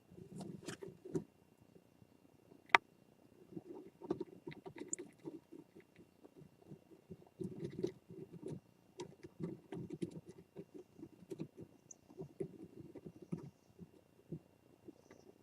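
Irregular scratching and shuffling inside a Japanese scops owl nest box, with scattered clicks and one sharp knock about two and a half seconds in.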